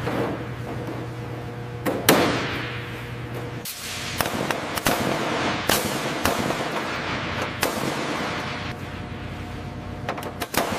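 A series of sharp, irregular knocks or bangs, about half a dozen, the loudest about two seconds in. Under them runs a steady low hum that stops a little under four seconds in.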